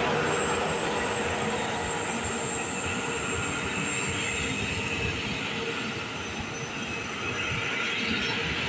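Passenger train moving through the station: steady rumble and rail noise, with thin, high, steady squealing tones from the wheels on the rails.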